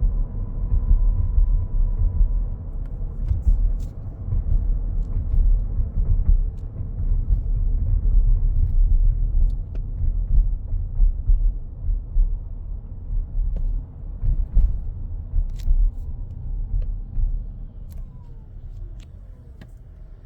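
Cabin sound of a 2025 Toyota Grand Highlander Hybrid on the move: a loud, low road rumble with a thin, steady high whine near the start that fades after a couple of seconds. Near the end, as the rumble eases, faint whines fall in pitch. The owner reports this high-pitched electrical whine as a persistent fault, most noticeable under acceleration.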